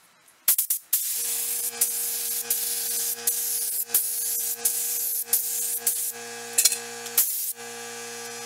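Gravity-feed spray gun spraying lacquer: a steady hiss of air and atomised finish, with a low steady hum under it. It starts about half a second in and drops out briefly a couple of times near the end.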